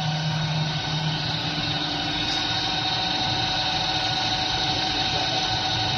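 Carrier roller double-head automatic boring machine running, its electric spindle motors giving a steady machine hum with a constant whine.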